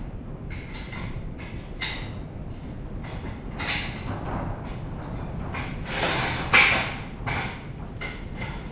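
A run of short knocks, clunks and scrapes from hands-on work under a VW Beetle's engine, with the loudest a sharp knock about six and a half seconds in.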